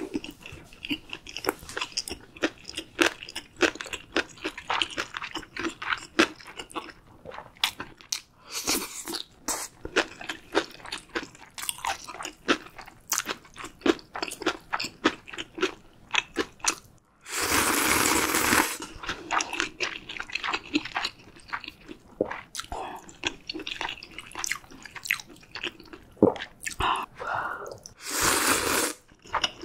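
Close-miked chewing of spicy ramyun noodles, with many small wet clicks, broken by two loud noodle slurps: one about 17 seconds in and one near the end.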